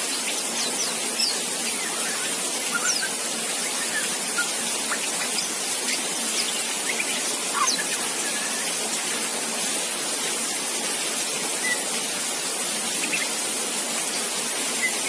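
Juvenile white-rumped shama (murai batu) giving scattered faint, thin chirps and short whistles: the rambling early practice song (riwik) of a young bird just learning to sing. A steady hiss underlies it and is louder than the calls.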